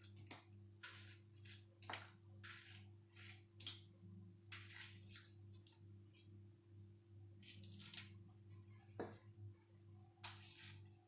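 Faint, irregular short cuts and scrapes of a knife working through peaches, about one every half second to a second, over a steady low hum.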